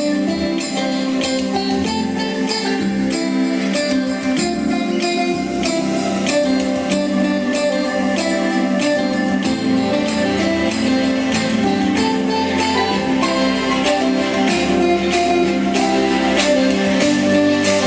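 Pop song's instrumental stretch playing through a Poweradd BID0054 Bluetooth speaker as a sound test: sustained instrumental notes over a steady beat with tambourine-like high percussion.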